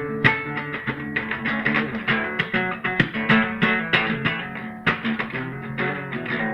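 Instrumental music led by plucked guitar notes in a quick, continuous run.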